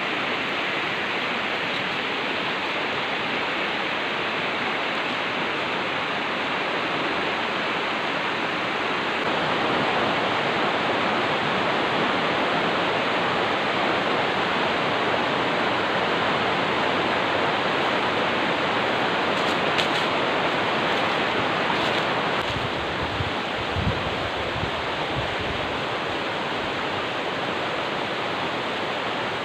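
A steady, even rushing hiss. It gets louder about nine seconds in and softer again about twenty-two seconds in.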